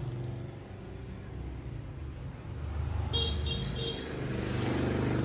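A motor vehicle running and passing by, with a steady low hum and a rising rush of noise near the end. A few short, high beeps about three seconds in.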